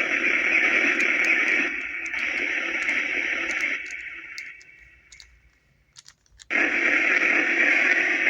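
Necrophonic spirit box app playing white noise through echo and reverb: a steady hiss that fades away about four seconds in, leaves near silence with a few faint clicks, then cuts back in suddenly near the end.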